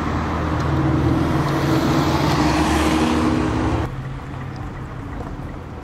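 A motor vehicle's engine running close by, with road noise swelling toward the middle; it cuts off abruptly at about four seconds, leaving a quieter steady street hum.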